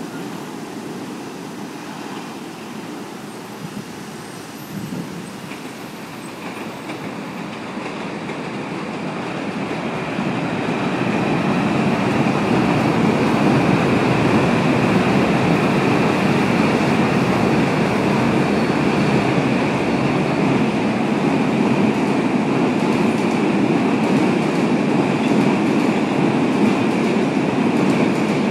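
Electric commuter train crossing a steel girder railway bridge. A rumble builds over the first ten seconds or so as the train nears, then runs loud and steady as the cars pass, with a faint high-pitched ring or whine above it.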